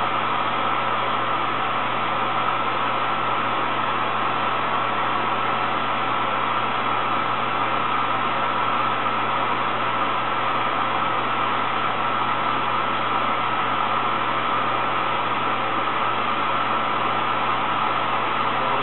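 Steady mechanical hum with hiss.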